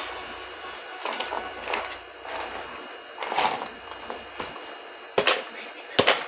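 Rattling and scraping from a homemade toy vending machine being handled, a few short bursts about a second apart, then two sharp knocks near the end.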